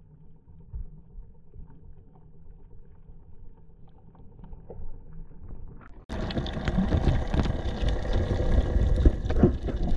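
Muffled underwater rumble picked up through a camera's waterproof housing, which about six seconds in jumps suddenly to a much louder rush of water noise with scattered knocks and clicks.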